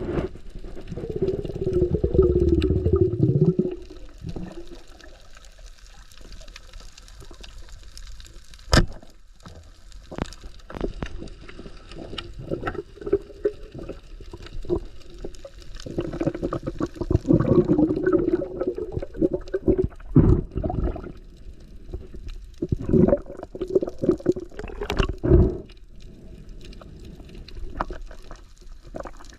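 Water gurgling and sloshing in bursts, with scattered sharp clicks, one loud click about nine seconds in.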